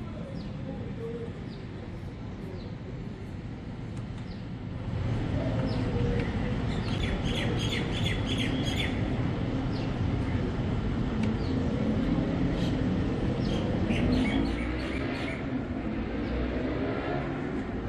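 Small birds chirping in quick runs over a steady low hum of city and harbour ambience; the low rumble grows louder about five seconds in.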